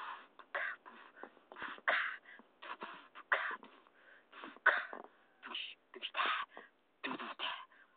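A person making vocal sound effects with the mouth: a rapid, irregular string of short breathy puffs, hisses and spits, with no voiced pitch, about two or three a second.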